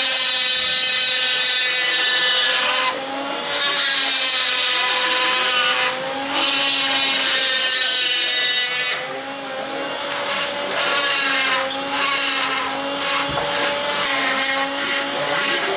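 Flexible-shaft rotary carving tool with a small burr cutting into wood: a steady motor whine that wavers in pitch as the burr bites, easing briefly about three, six and nine seconds in.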